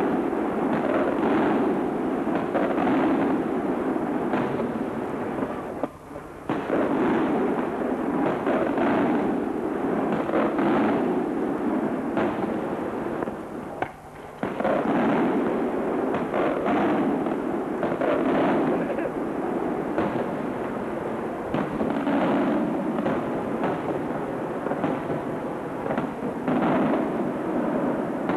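Aerial firework shells bursting in rapid, overlapping succession as a near-continuous barrage, with two short lulls about six and fourteen seconds in.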